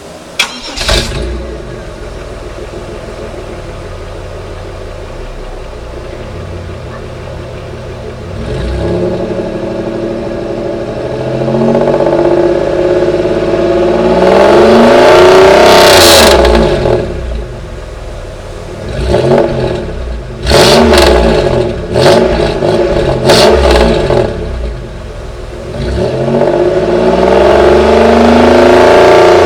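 Pontiac Grand Am GT engine heard through its original, stock exhaust. It starts within the first second and settles to a steady idle. It is then revved: one long climb that peaks and falls back, several short blips, and a last held rev near the end.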